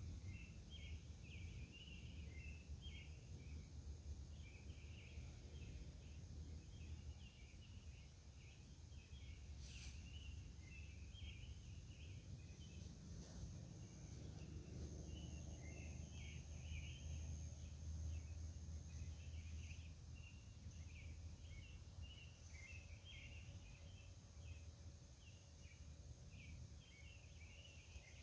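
Faint outdoor summer-night ambience: continuous high chirping with a steady thin high trill above it, over a low distant rumble.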